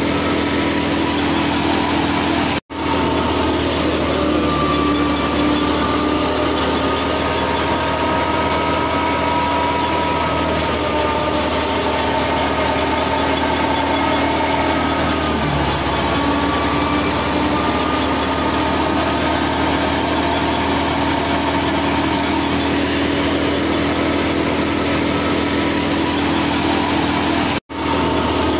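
Miniature model threshing machine and toy tractor running steadily: a constant motor hum with a wavering higher whine from the belt-driven drum, cutting out briefly twice.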